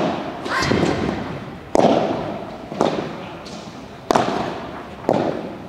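Padel rally: sharp pops of the rackets striking the ball and the ball bouncing off the court and glass walls, about one a second, each ringing on in the echo of a large hall. The loudest pop comes about four seconds in, from a jumping overhead smash.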